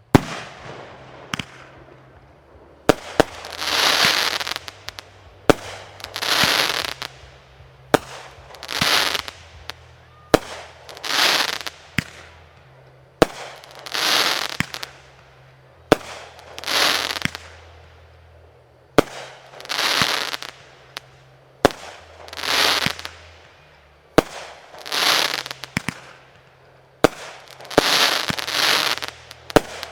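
Fireworks shells going off in steady succession: a sharp bang every two to three seconds, each followed by a hissing crackle that swells and fades over a second or so.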